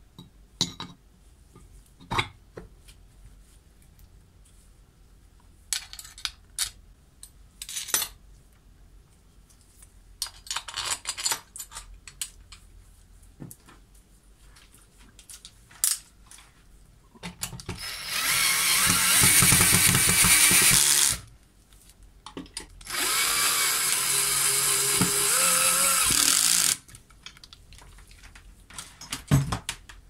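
Electric drill-driver running in two bursts of about three seconds each, about two-thirds of the way in, fastening the end cover onto a washing machine universal motor. Before that, light clicks and knocks of the cast aluminium cover being handled and seated.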